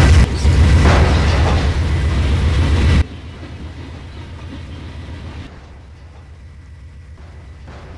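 Train running with a loud low rumble. The sound drops off suddenly about three seconds in, leaving a much quieter rumble that fades further.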